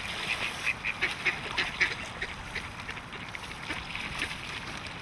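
Mallard ducks quacking: a quick run of short quacks in the first two seconds, thinning out to a few scattered calls afterwards, over a steady background hiss.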